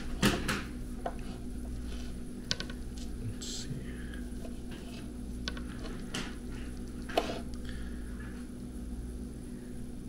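Scattered light clicks and knocks of a knife and cutting board being handled on a kitchen counter, with one sharper knock about seven seconds in, over a steady low hum.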